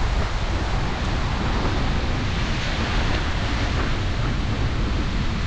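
Wind buffeting the microphone, a steady low rumble under a broad hiss, with the sea's surf washing behind it.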